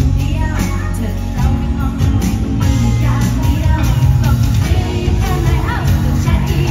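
Live pop band music with a woman singing the melody over electric bass, guitar and keyboards.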